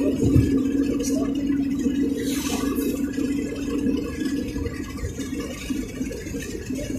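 Steady engine and road noise inside a moving car, with a constant low hum.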